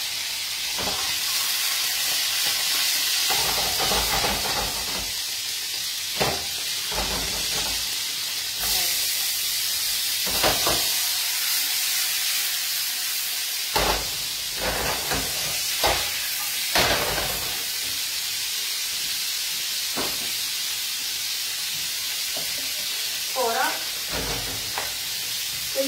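Pieces of asparagus stalk browning in hot oil in a frying pan, a steady sizzle, with a scattering of short clinks and knocks of pans and utensils.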